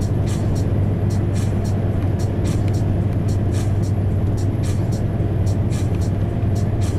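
Cab interior of a fully loaded Scania R500 truck at cruising speed: the V8 diesel's steady low drone mixed with road and tyre noise. There is a faint regular ticking beat of music from the cab stereo over it.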